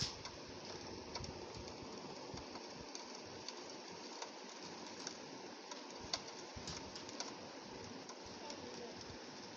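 Rain on a window pane: a steady hiss of rainfall with many small, sharp ticks of drops striking the glass.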